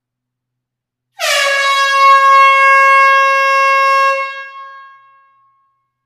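A single air horn blast in a closed hall: one steady, loud note starting about a second in and held for about three seconds, its pitch settling just after the onset, then a reverberant tail fading away over about a second.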